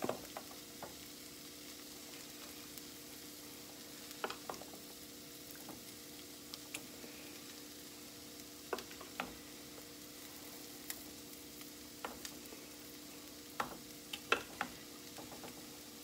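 Plastic measuring cup scooping and ladling baked beans in a glass baking dish: scattered light clicks and taps of the cup against the dish and the wet beans, a few at a time with pauses between, over a steady faint hum.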